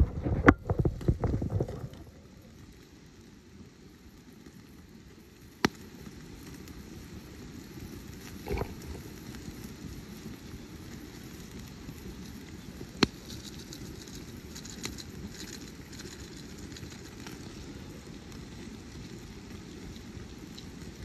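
Campfire of split wood in a stone ring burning with a steady low rush, broken by a few sharp single pops and crackles. A quick run of loud knocks and cracks fills the first two seconds.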